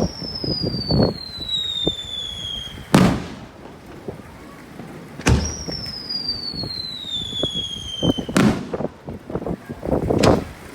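Fireworks going off: twice a sharp crack is followed by a long whistle falling steadily in pitch for about three seconds, ending in a loud bang, with scattered crackling pops in between.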